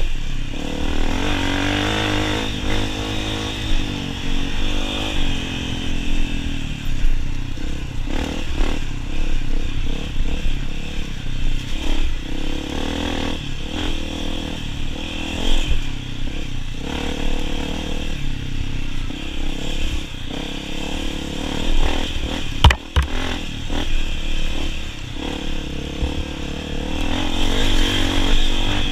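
Honda CRF250F dirt bike's air-cooled single-cylinder four-stroke engine, ridden hard on a race trail, its revs rising and falling with the throttle. One sharp knock comes late on.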